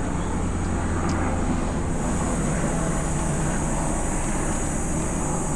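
Steady outdoor background rumble of engine noise, with a constant high hiss; the deepest part of the rumble eases about two seconds in.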